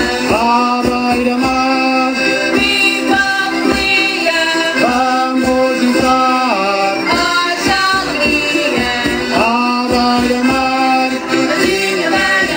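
Madeiran folk group playing: singing in long held notes that slide between pitches, over strummed small guitars and a steady drum beat.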